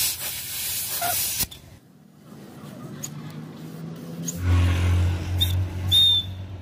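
Compressed air hissing from an air-line hose into a bicycle inner tube, cutting off about a second and a half in. After a quiet pause, a low steady motor hum comes in a little past the middle, with a brief high whistle near the end.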